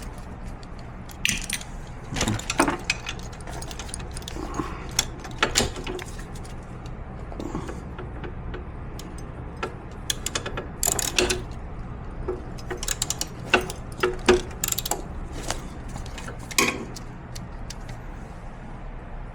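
Irregular metal clicks and clinks of a number 5 Allen bit on two socket extensions being fitted and worked on a screw under a power wheelchair's seat, over a steady low hum.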